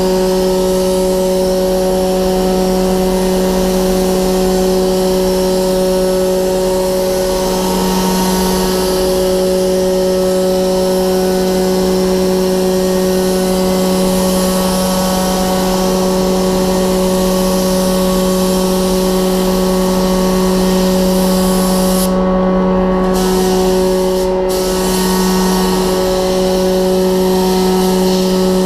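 Gravity-feed paint spray gun hissing as it sprays the car, over the steady hum of the paint booth's ventilation. Twice near the end the hiss cuts out briefly as the trigger is let go, while the hum keeps running.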